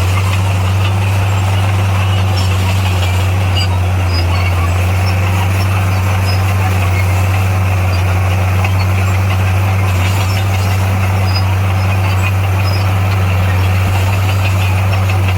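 Heavy diesel engine of earthmoving equipment running steadily at an even speed: a deep, unchanging drone.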